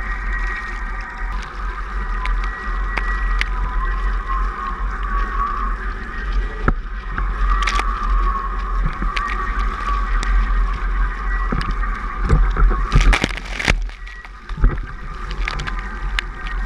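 Water rushing past a windfoil's NeilPryde mast and board in flight, with a low wind rumble on the camera and a steady high whine. A burst of splashing comes about 13 seconds in.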